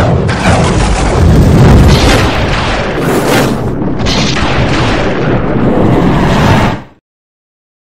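Cinematic intro sound effects: loud deep booming and rumbling with whooshing sweeps about three and four seconds in, cutting off about seven seconds in.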